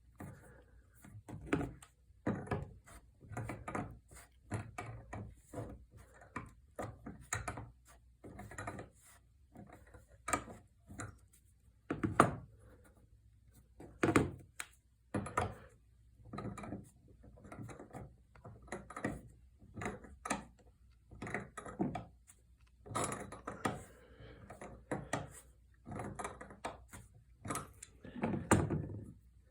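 Irregular clicks, knocks and light thuds, one or two a second, of a metal door stopper being gripped and turned off its baseboard screw with channel-lock pliers and handled.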